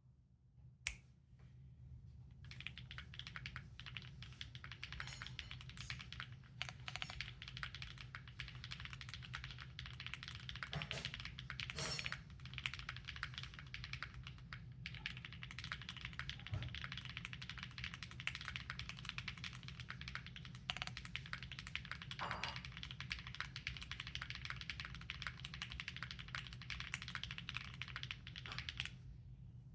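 Fast continuous typing on a TKD Cycle7 mechanical keyboard with Gateron Smoothie linear switches, GMK Sumi keycaps and a polypropylene plate, starting about two seconds in and stopping just before the end. A single sharp keystroke sounds about a second in, before the typing begins.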